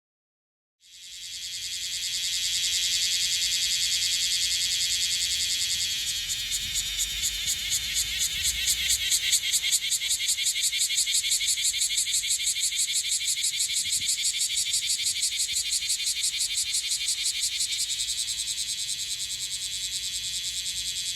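Bear cicada (kuma-zemi, Cryptotympana facialis) singing a loud, high buzzing call. It starts about a second in and swells, then from about six seconds on breaks into a fast pulsing rhythm of many strokes a second, easing slightly near the end.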